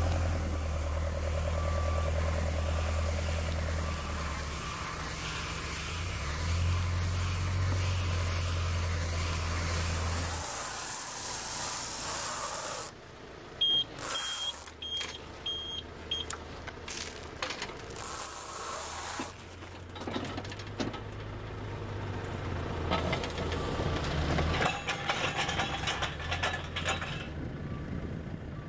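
JCB telehandler's engine running steadily while its bale grab carries a wrapped silage bale. After a cut, a bale wrapper runs with a series of about five short high beeps, followed by mixed machinery clatter and engine noise.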